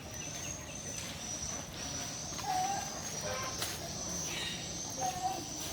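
Short, low bird calls repeated about every two and a half seconds over a steady high-pitched insect drone, with a sharp click past the middle.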